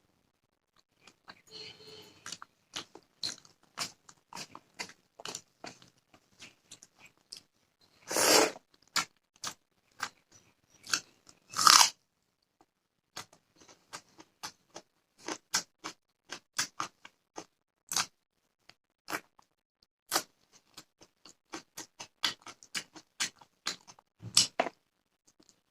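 Close-up mouth sounds of someone eating rice with fish curry: irregular wet chewing clicks and smacks. Two louder crunchy bites come about 8 and 12 seconds in.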